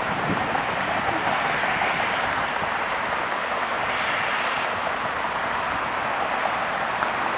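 Boeing 777-300ER's twin GE90-115B turbofans at takeoff thrust, a steady rushing noise with no rise or fall, as the jet rotates and lifts off.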